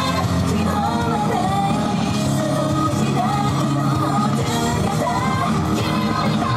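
Japanese idol group performing live: a loud pop-rock backing track with voices singing over it, and some shouting.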